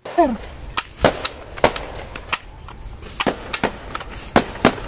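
Battle-scene gunfire: single gunshots at irregular intervals, a dozen or so, over a steady low rumble of background noise, with a brief falling tone at the very start.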